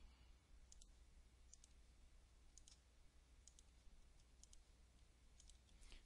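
Near silence with faint computer mouse clicks, about eight of them, several in quick pairs of press and release.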